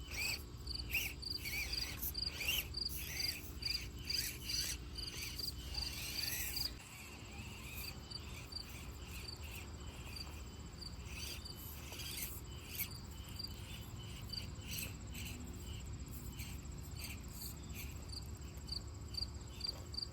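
Cricket chirping steadily, about two to three chirps a second. Irregular clicks and knocks over a low rumble run through the first seven seconds and then stop.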